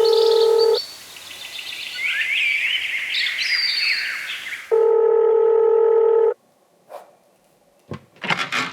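Telephone ringback tone heard through the caller's phone: two rings, the first cut off about a second in, the second from just under five to about six seconds in. Birds chirp between the rings. A click follows about seven seconds in, and a voice starts near the end.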